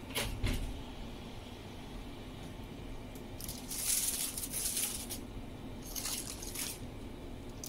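Aluminium foil crinkling as it is pulled open from a pan of baked pork ribs, in a few crackly bursts: a short one at the start, a longer one from about three and a half to five seconds in, and another near the end.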